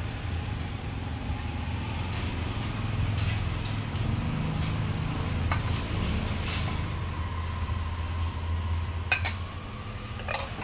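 Ceramic bowls and a metal spoon clinking a few times as bowls are set down on a table, the sharpest clinks near the end, over a steady low rumble.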